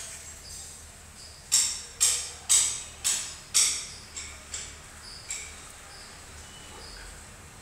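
A run of sharp, high-pitched clicks, two a second. The first five are loud, then three weaker ones follow before they stop, over a faint steady hum.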